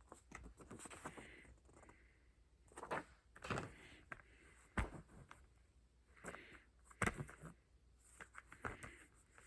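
Quiet handling noises: soft rustling and a few light knocks and clicks as a kit's paper guide and disc case are moved about, with the sharpest knocks about five and seven seconds in.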